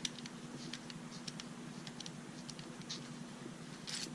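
Faint scattered clicks and ticks of a pen being handled and taken apart to reach its refill, with a brief louder rustle near the end, over a steady low hum.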